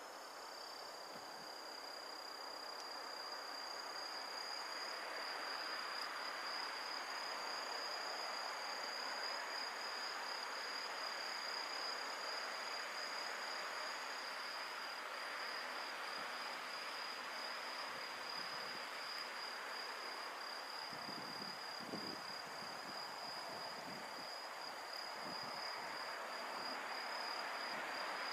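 Insects trilling in a steady, unbroken high tone over a soft background hiss.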